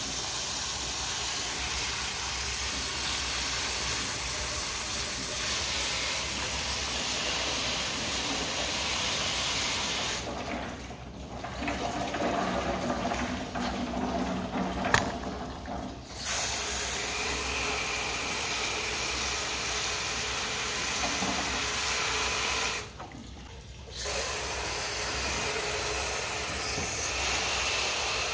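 Garden hose spray nozzle spraying water onto the metal floor trays and gutters of a rabbit hutch, a steady hiss. The spray stops for several seconds about ten seconds in, starts again, and cuts out once more for about a second near the end.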